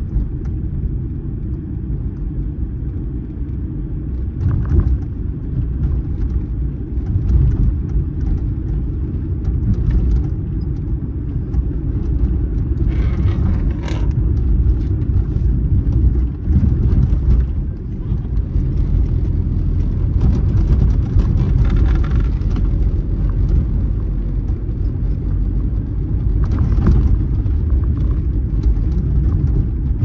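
Steady low rumble of a moving road vehicle, with brief fainter sounds on top now and then.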